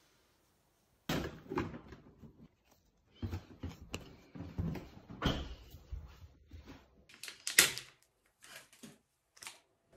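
Handling sounds of a plastic-and-foil sachet of hydrogel eye patches being handled and opened: irregular rustles, crinkles and light knocks starting about a second in, with sharper crackles near the three-quarter mark.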